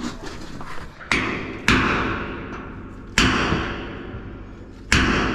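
Four heavy metal-on-metal blows, irregularly spaced, each ringing and dying away over about a second. They are strikes on a stuck pipe fitting, meant to break it loose.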